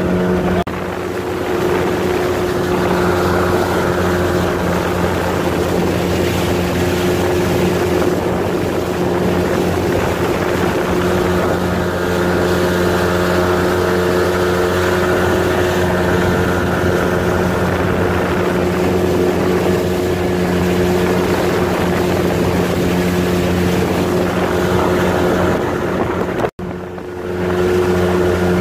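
Motorboat engine running steadily under way, with wind noise on the microphone. The sound drops out for a moment near the end, then the engine resumes unchanged.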